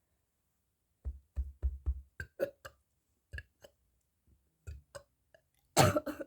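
A person's throat: a quick run of about eight short, low gulping pops, a few more spaced out, then one louder, rough burp near the end.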